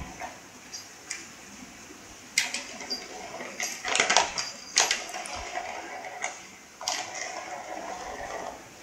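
Catit Play 'n Scratch cat toy, a plastic ring track with a ball and a spring-mounted pompom, clattering and rattling as a cat bats at it. There are several sharp knocks, the loudest about four seconds in, with a softer rattle between them.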